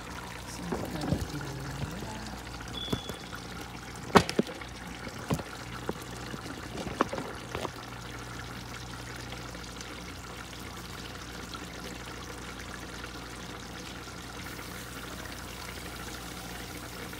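Cookware knocking and clinking at the stove several times in the first eight seconds, the sharpest knock about four seconds in. A steady hiss with a low hum runs underneath and is all that is left for the rest of the time.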